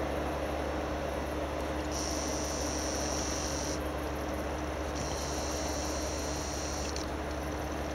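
Two bouts of a high, steady insect trill, each about two seconds long, over a steady low background hum.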